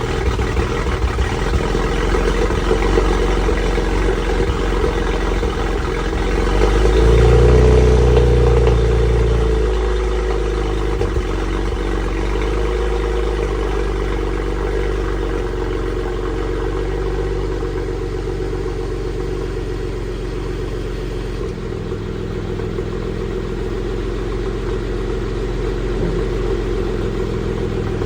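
BMW 335i's N54 twin-turbo straight-six idling on a cold start. It sounds like it is misfiring. About seven seconds in the engine speed rises briefly, then it settles back to idle.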